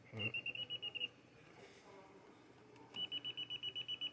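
Voltage tester pen beeping rapidly, about ten short high beeps a second, in two bursts: one at the start and one from about three seconds in. Held at a live socket, it is detecting mains voltage, working again after its battery-corroded contact was repaired.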